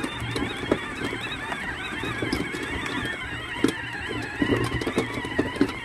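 Kids' battery-powered ride-on ATV driving over rough grass: its electric motors and gearboxes whine with a wavering pitch over a low hum, with scattered short knocks as it rolls over the uneven ground.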